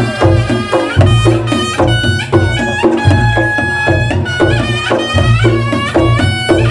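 Reog Ponorogo gamelan ensemble playing: rapid kendang drumming with deep gong and kempul strokes, under a shrill, wavering slompret (reed shawm) melody.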